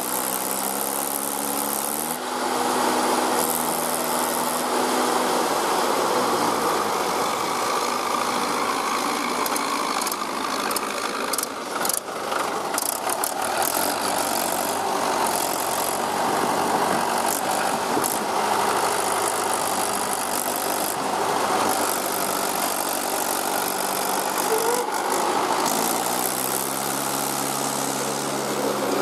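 Mahindra tractor's diesel engine running under load as it tries to pull a loaded trolley out of mud, revving up in the first couple of seconds and again near the end.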